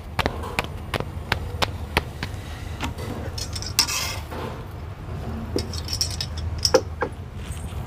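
Metal tongs (chimta) clicking and clinking against an iron tawa as a paratha is turned on a wood-fired stove, with a brief scrape about four seconds in. A low steady rumble runs underneath.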